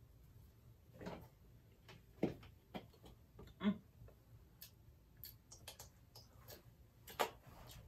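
Faint, scattered mouth sounds of chewing, with soft clicks and taps as a plastic squeeze bottle of ketchup is handled and squeezed over fries.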